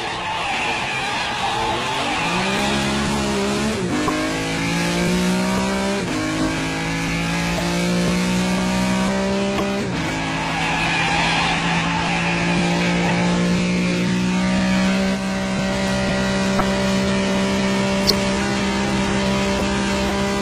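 Ferrari 275 GTB V12 engine driven hard through the gears: the revs climb and drop sharply with each gear change several times, then hold high and steady for the last several seconds. Tyres squeal briefly near the start and again about halfway through.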